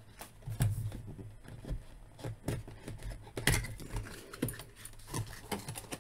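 Cardboard action-figure box being handled and opened: scattered taps, scrapes and rustles of the packaging against the tabletop, the loudest about three and a half seconds in.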